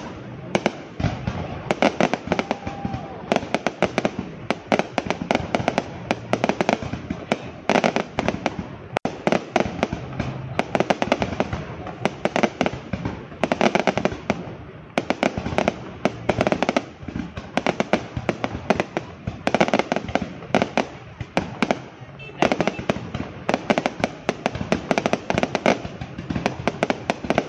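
Aerial fireworks barrage: rapid, continuous crackling and banging from shells bursting overhead, with louder clusters of bursts every second or two.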